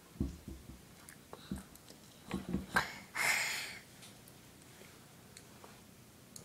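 Toddler eating cake with a plastic spoon: a few soft low knocks of the spoon against the plate, then a short breathy giggle a little after three seconds in.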